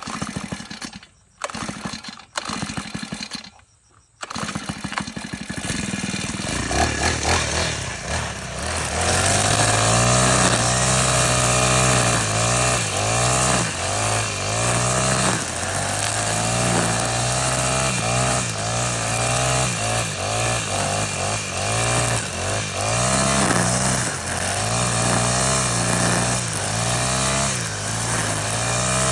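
Four-stroke brush cutter engine starting about four seconds in, then revving up and running at high speed, its pitch wavering up and down as the throttle is worked.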